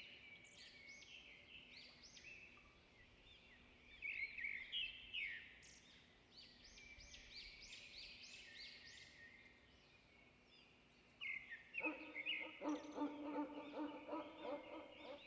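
Faint chirping of small birds, many quick rising and falling notes. About twelve seconds in, a lower, rapidly repeated call from a larger bird joins them.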